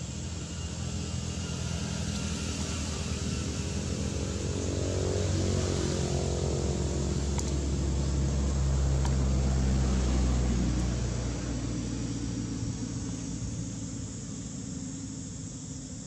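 Engine of a passing motor vehicle, a low steady drone that grows louder to a peak about two-thirds of the way in and then fades away.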